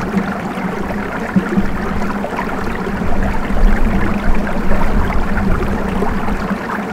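Water rushing onto the wooden paddles of a Shetland click mill's horizontal waterwheel as it turns, a steady splashing rush with a low steady hum underneath.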